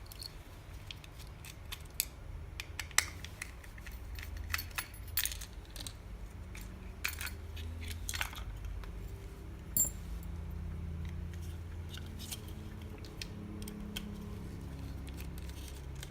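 Scattered clicks, taps and clinks of small plastic and metal parts being handled and pried apart while a crushed remote microphone is disassembled by hand, over a low steady hum.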